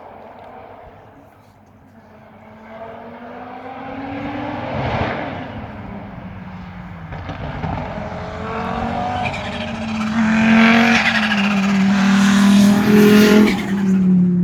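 Audi quattro five-cylinder engines driving past. One car goes by about five seconds in, then a louder one comes up and passes near the end, its note falling as it goes by.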